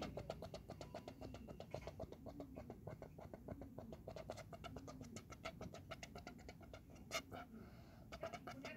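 Rapid scratchy clicking, about eight clicks a second and nearly unbroken, with one sharper click about seven seconds in.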